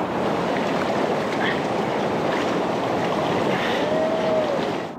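Water sloshing and splashing steadily as people wade through deep floodwater covering a road.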